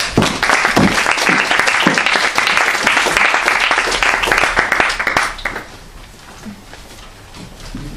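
Audience applauding, a dense patter of many hands that dies away about five and a half seconds in.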